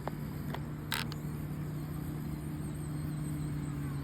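Small electric motor and gearbox of a 1/24-scale RC crawler running steadily with a low, even hum while it drives donuts. A few light clicks, with one sharper click about a second in.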